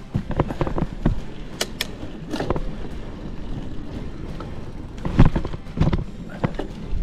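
Mountain bike knocking and rattling over rough, stony ground, with irregular knocks and two louder thumps about five and six seconds in.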